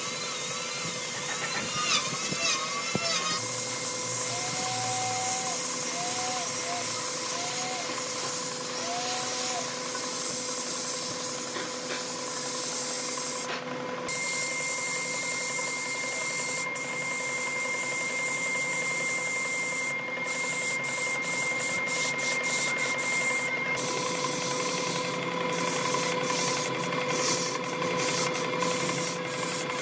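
Electric power tool running steadily on wood, with a constant motor hum.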